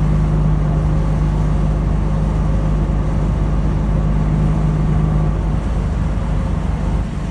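Steady road and engine rumble heard from inside a moving vehicle's cabin. A low hum runs under it and drops out about five and a half seconds in.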